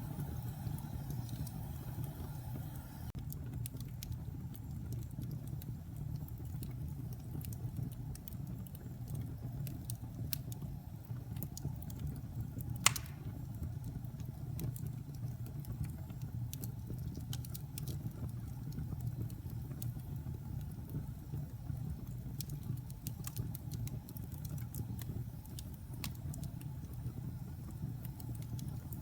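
Wood logs burning in a fireplace: a steady low rumble of the flames with scattered sharp crackles, and one loud pop about halfway through.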